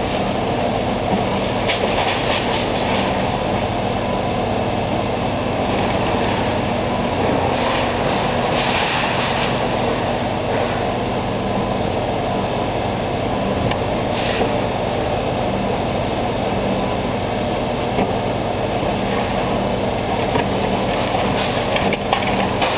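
Diesel engine of a long-reach demolition excavator running steadily under load, with brief bursts of crunching and clatter from brick and concrete breaking and falling, about 2, 8 and 14 seconds in.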